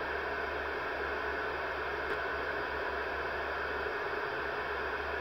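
Steady static hiss from a Uniden Bearcat 980SSB CB radio's speaker, its squelch open with no signal coming in between test transmissions.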